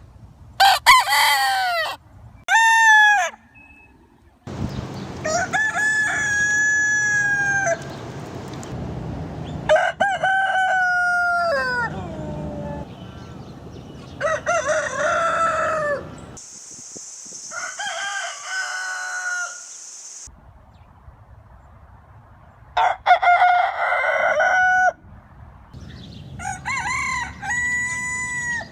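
Roosters crowing: a string of about eight separate cock-a-doodle-doo crows from different birds, each one to three seconds long, with short pauses and changing background between them.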